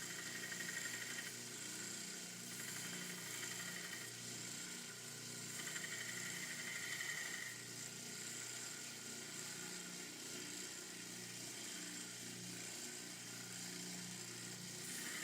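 Belt grinder with a 400-grit belt running steadily while a pocket knife's handle edges are ground against it. A higher grinding hiss comes and goes a few times.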